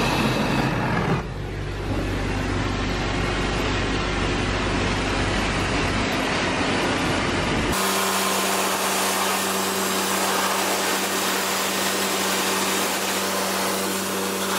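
Dog-grooming blow dryer running steadily, blasting air through a double-coated dog's coat. About eight seconds in the sound changes abruptly: the deep rumble drops out and a steady hum takes over.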